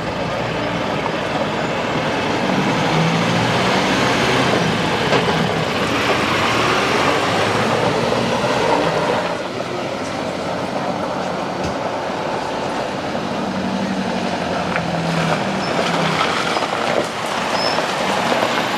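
Mercedes Unimog truck driving over rough off-road ground: its diesel engine running under load with a steady rumble and rattle, the engine note rising at times.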